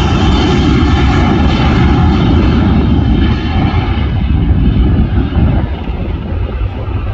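Jet engines of a Boeing 737 rolling along the runway: a loud, steady roar over a deep rumble, its higher hiss thinning out after about three seconds as the aircraft draws away.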